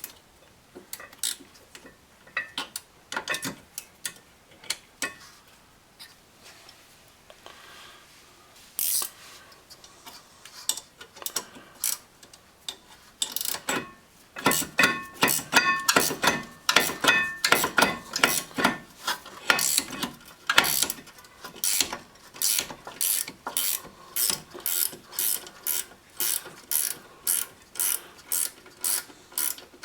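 Hand ratchet wrench clicking as a brake caliper assembly bolt is turned out. At first there are scattered clicks. About halfway in come fast runs of ratcheting, then a steady back-and-forth of about two clicks a second.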